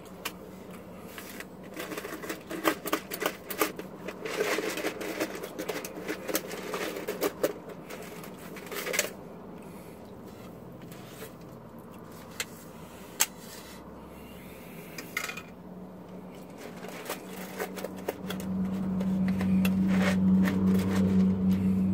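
Ice and a straw rattling and clicking in a paper fountain-drink cup with a plastic lid as the drink is stirred and shaken, working the ice down to the bottom. Near the end comes a steady low hum lasting a few seconds as the cup is tipped up to drink.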